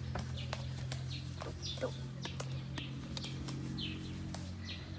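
Hand-milking a cow: short spurts of milk squirting into a small plastic cup, while a bird chirps over and over in short falling calls above a steady low hum.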